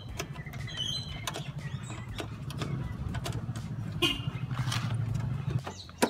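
Metal clicks and knocks of a spanner and screws being refitted to a car horn's mounting bracket, over a steady low hum.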